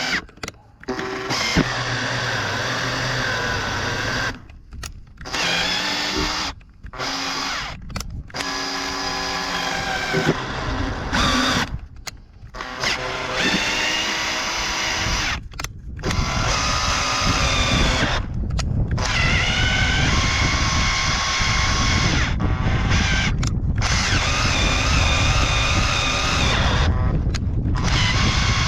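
Drill driving a thread tap into a bolt hole in an alloy cylinder head at low speed, with the motor whining. It starts and stops in short runs at changing speeds many times, then runs more steadily near the end.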